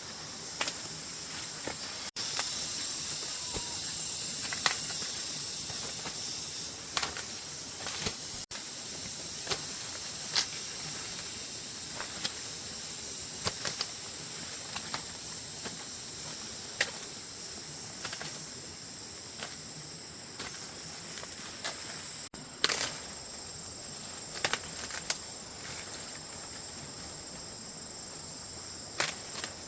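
Insects droning steadily at a high pitch, with scattered sharp clicks and rustles throughout, a loud one about three quarters of the way in.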